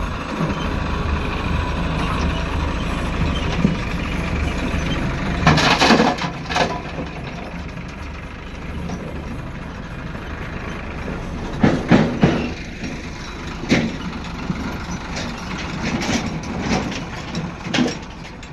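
JCB 3DX backhoe loader's diesel engine running steadily under work, with several loud knocks and bangs on top: a cluster around six seconds in, a pair around twelve seconds, and more near the end.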